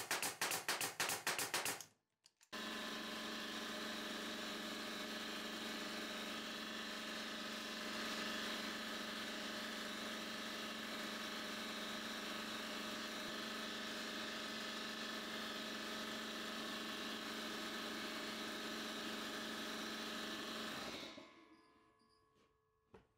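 A pneumatic brad nailer fires shot after shot in rapid succession for the first couple of seconds. After a short break, a Fortress 27-gallon oil-free air compressor runs steadily with a hum and hiss, refilling its tank after the nailing drew it down to the cut-in pressure, then winds down and stops near the end.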